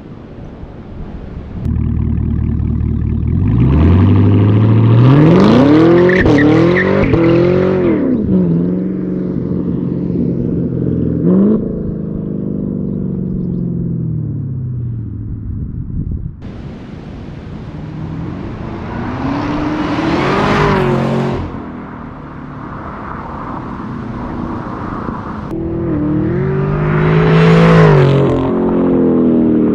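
Chevrolet Camaro ZL1's supercharged V8 exhaust revving in three swells, the pitch climbing and falling each time, in clips that cut abruptly from one to the next.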